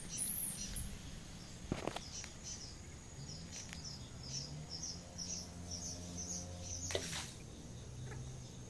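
A small bird chirping over and over, a short high call about two to three times a second. About seven seconds in there is a brief splash as a cast fishing lure lands on the pond.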